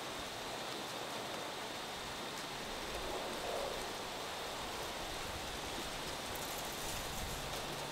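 Steady rushing hiss, even in pitch, swelling slightly about three seconds in.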